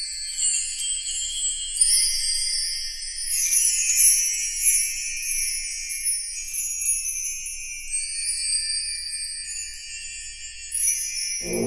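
Background music played entirely in a high register: many quick, overlapping high notes with no bass.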